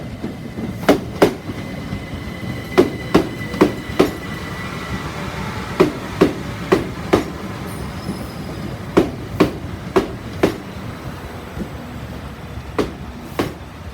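Class 377 Electrostar electric multiple unit running into the platform, its wheels clicking over rail joints in groups of two to four as each pair of bogies passes, about every three seconds. A faint thin whine runs through the first few seconds.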